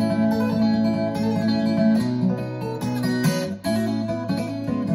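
Acoustic guitar music played over hi-fi loudspeakers and picked up by a microphone in the listening room, not taken directly from the source.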